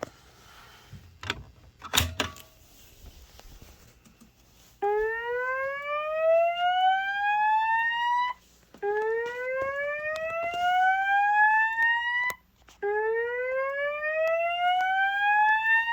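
Slow whoop evacuation tone from a Notifier voice evacuation system, played through System Sensor SPSW speaker strobes. Three rising whoops, each about three and a half seconds long with short gaps between them, begin about five seconds in, after a couple of sharp clicks.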